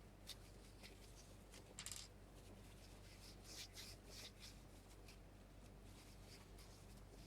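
Faint, scattered rustling and rubbing strokes of grease being wiped off small plastic lock parts by hand, a slightly louder rub about two seconds in.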